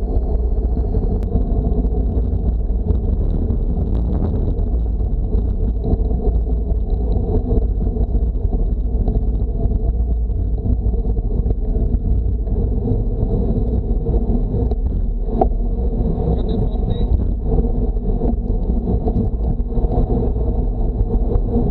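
Steady low wind rumble on a bicycle-mounted action camera's microphone, buffeted by the airstream while the bike coasts downhill at about 25–40 km/h.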